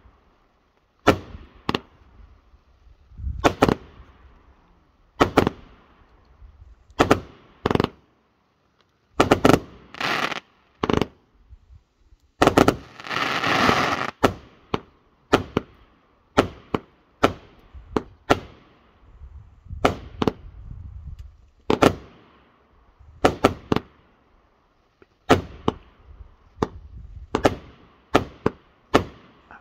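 Tanjiro's Revenge, a 54-shot AstroBoy fireworks cake, fires a rapid series of aerial shots, a sharp bang about once a second. Near the middle comes about two seconds of continuous noise.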